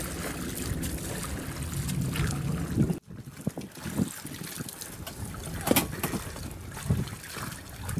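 Wind buffeting the microphone over the water, then after a sudden cut, plastic oars of an inflatable dinghy dipping and splashing in choppy water, with a few sharp splashes.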